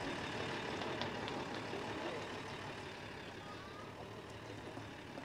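A vehicle engine running with a steady rumble and hiss that fades slowly.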